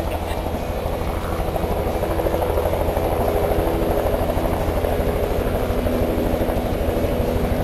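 Helicopter running close by, its rotor beating in a fast, steady rhythm over a low engine hum, growing a little louder over the first couple of seconds.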